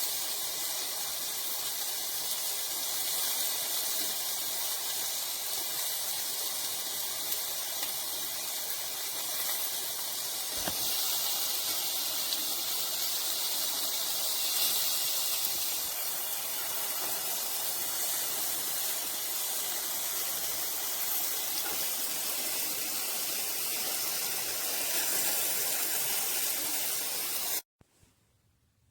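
A steady rushing hiss that cuts off suddenly near the end.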